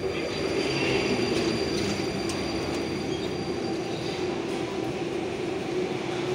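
Metro train running on the rails, a steady rumble of wheels and motors with a faint high whine above it.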